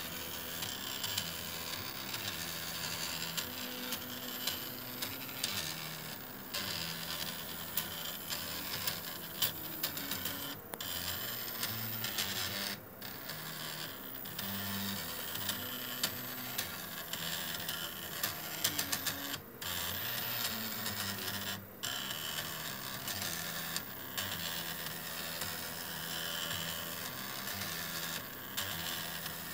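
X-axis stepper motor of a RepRap Prusa i2 3D printer, driven by A4988 stepper drivers, moving the belt-driven carriage back and forth along its smooth rods. It gives a buzzing whine that jumps from one steady pitch to another as the commanded speed changes, and it stops briefly a few times.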